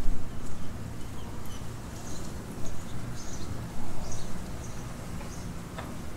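Guinea pigs munching fresh grass: faint, irregular crunchy nibbling over a steady low background rumble, with a light click near the end.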